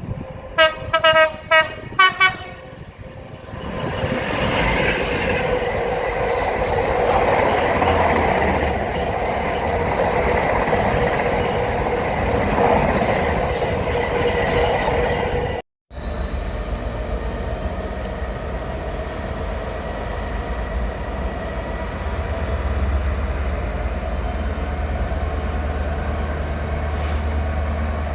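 A train sounding a quick series of about five short horn blasts, then passing with a steady rush and rumble. After a sudden break, a train runs on with a steady low rumble and a slowly rising whine.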